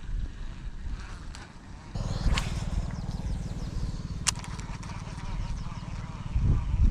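A small engine running steadily, louder from about two seconds in, with a sharp click about four seconds in.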